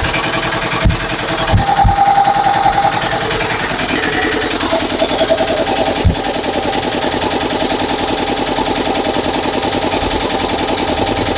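A motorcycle engine idling steadily, with a fast even pulse, and a few dull knocks in the first two seconds.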